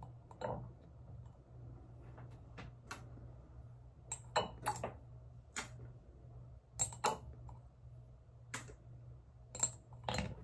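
Light clicks and clinks, about a dozen spread out, from a glass dropper and its glass bottle of body oil being handled, over a faint steady low hum.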